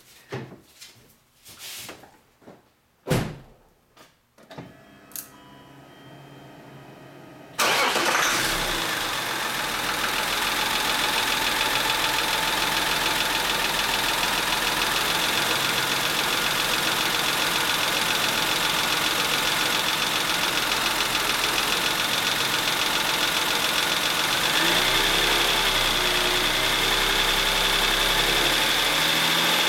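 A few clicks, then about seven and a half seconds in the BMW E39's M52 straight-six starts abruptly and settles into a steady idle. The owner takes its running sound for a sign of an engine problem.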